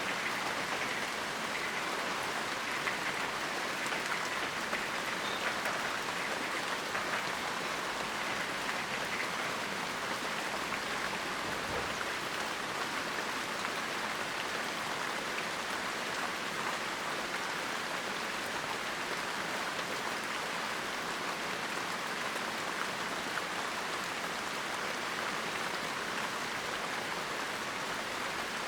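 Steady heavy rain pattering on a surface, a dense, even hiss of drops with no let-up.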